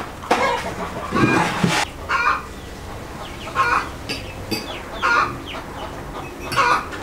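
Chickens clucking, a short call about every second, with a louder call about a second in.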